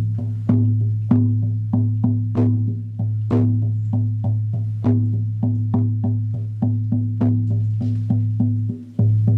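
18-inch buffalo-skin shamanic frame drum beaten with a soft beater in a steady rhythm, about three strikes a second, its deep tone ringing on between strokes. Near the end the ringing cuts out for a moment before the beating resumes.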